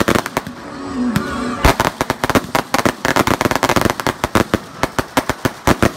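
Fireworks going off: a rapid string of sharp bangs and crackles, many a second, thickest from a little under two seconds in until just before the end.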